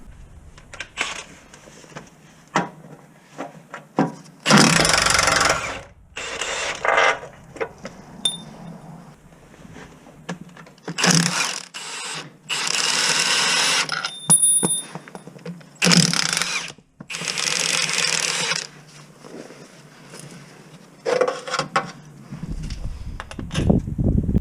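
A cordless power tool run in several short bursts of one to two seconds each, with clicks and knocks of hand tools and metal parts between the runs.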